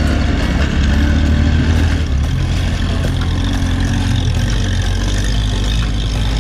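An off-road 4x4's engine running steadily with a deep, low drone.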